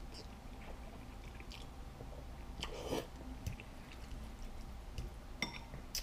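A person chewing a mouthful of thick, saucy ramen noodles, with wet mouth sounds. Near the end a metal fork clinks twice against a glass bowl while stirring the noodles.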